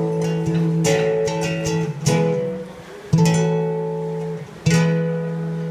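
Chords strummed on an acoustic guitar-family instrument, a new chord about once a second, each left to ring out.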